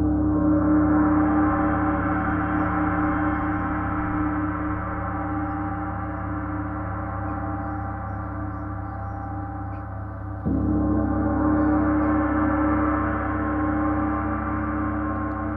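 A 34-inch Paiste Symphonic gong struck with a soft felt mallet, ringing on in a sustained wash of steady low tones and overtones. About ten seconds in, a fresh stroke swells it again.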